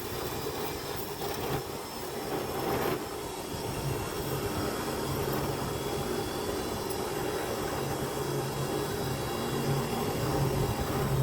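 A small electric motor running steadily, a hum with a faint high whine over it.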